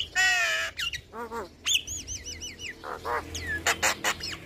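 Javan myna singing a varied, chattering run: a harsh rasping note at the start, then chirps and a quick series of short up-and-down whistled notes, followed by more sharp calls.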